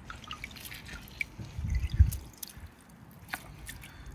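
Water dripping and trickling off a handful of sodden pond weed lifted out of a bucket of pond water, with the weed squelching in the hands. A louder, dull low handling thump comes about two seconds in.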